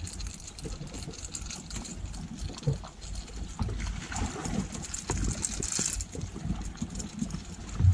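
Sea water washing and trickling against a rocky shore, with wind rumbling on the microphone and scattered small knocks and scuffs of movement on the rocks; a louder thump near the end.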